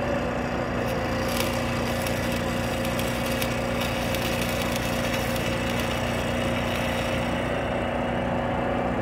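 Arc welding crackling and sputtering on the steel frame of a disk harrow's undercarriage wheel mount, from about a second in until near the end, over the steady hum of an idling engine.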